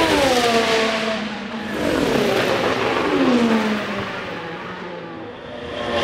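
Formula 1 cars' 1.6-litre turbocharged V6 hybrid engines passing close by at speed, the pitch falling as each goes past: one at the start, a second about two seconds in, and a third arriving near the end.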